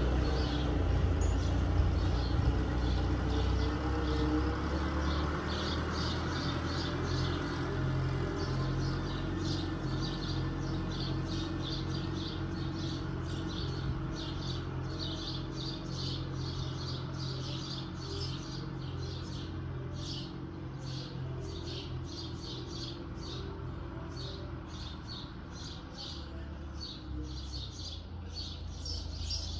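Tractor diesel engine running at a steady speed out of sight, its low hum slowly fading. A bird chirps over it in a quick, steady series of short calls.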